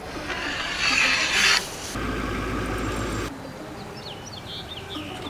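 A steady rushing noise, joined by a low hum about two seconds in, that stops abruptly after about three seconds. Birds chirping follow.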